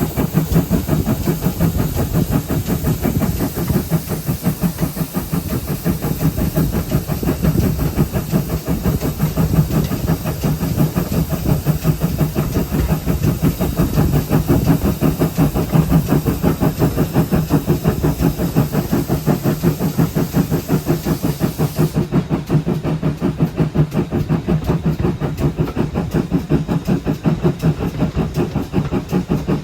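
Steam locomotive 7714, a GWR 0-6-0 pannier tank, running on the line: a steady, loud rumble with a rapid pulsing rhythm and steam hiss.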